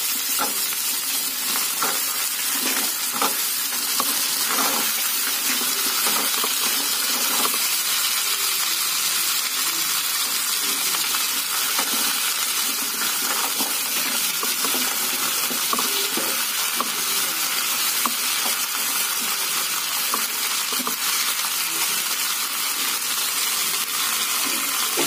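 Chopped yardlong beans and potato pieces sizzling in hot oil with browned onions in a kadhai, a steady frying sizzle. A few light clicks of pieces landing in the pan in the first few seconds.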